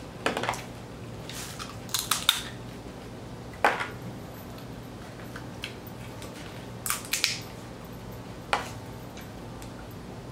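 Boiled blue crab shells being cracked and snapped apart by hand while eating, about eight sharp cracks at irregular intervals.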